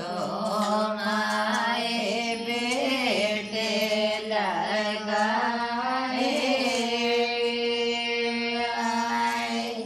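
Women singing a traditional Hindi wedding folk song (shaadi geet) unaccompanied, in a slow melody with gliding pitches that ends on one long held note.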